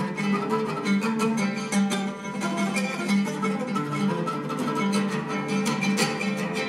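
Oud being played: fast, dense picked notes over a low note struck again and again.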